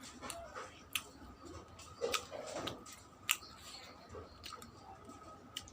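Close-up wet chewing and lip smacking while eating soft fried puri soaked in chicken curry, with sharp mouth clicks every second or so and a squishy stretch about two seconds in.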